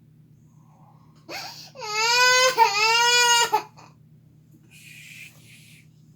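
Baby, just woken from sleep, crying: one loud wail of about two seconds, falling slightly in pitch and broken once in the middle, followed by a soft breathy sound.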